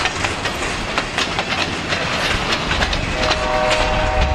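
Empty pulpwood bunk flatcars of a long freight train rolling past, steel wheels clacking irregularly over the rail joints above a low rumble. About three seconds in, a steady tone of several notes sets in.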